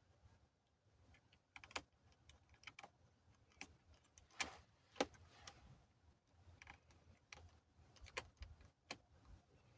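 Scattered small clicks and taps of a screwdriver and screws being worked on a laptop's casing during reassembly, irregular and faint, with two sharper clicks about four and a half and five seconds in.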